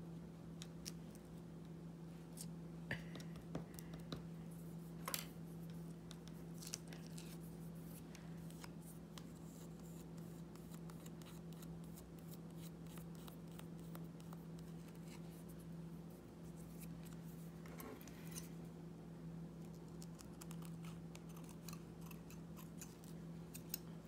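Small scissors snipping mesh netting, a scattered series of short sharp clicks and snips, over a steady low hum.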